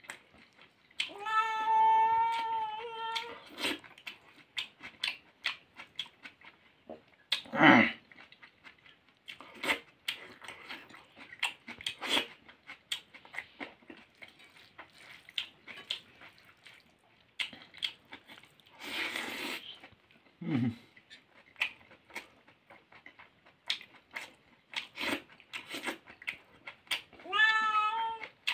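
A cat meows twice, a long drawn-out meow near the start and another near the end. In between are close-miked eating sounds: chewing, lip-smacking and fingers working rice and meat, heard as many short clicks.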